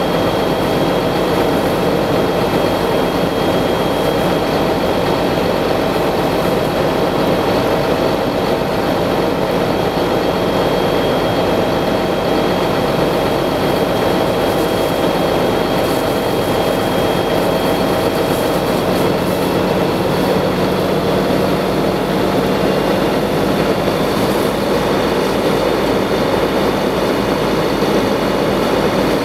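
Fire engine pump and motor running steadily at working speed, supplying the hose lines, with water spraying from the nozzles. The drone is unbroken, with a few steady hum tones over a constant hiss.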